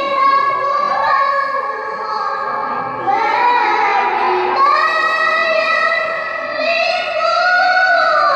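A young female qoriah's voice reciting the Quran in melodic tilawah style. She holds long high notes with ornamented turns, and the pitch climbs in steps through the second half.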